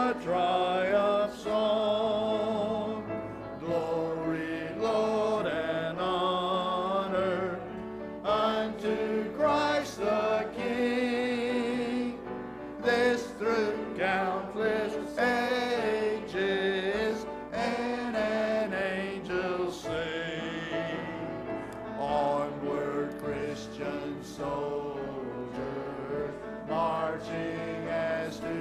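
Small choir of men's and women's voices singing a hymn together, sustained notes with vibrato.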